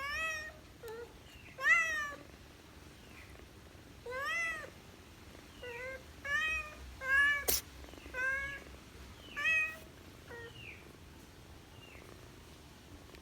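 Kitten meowing over and over: about nine short, high meows, each rising then falling in pitch, fading out near the end. A single sharp click comes about seven and a half seconds in.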